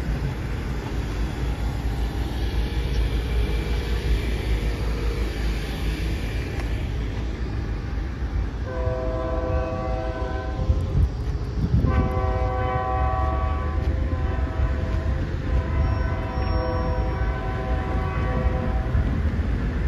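Multi-chime freight locomotive horn sounding three long blasts, the last the longest, over a steady low rumble.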